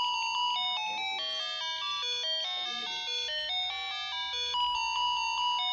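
Wireless doorbell receiver playing its electronic chime tune, set off by the remote push button: a quick run of clean, stepping notes. About four and a half seconds in, it starts its opening phrase again.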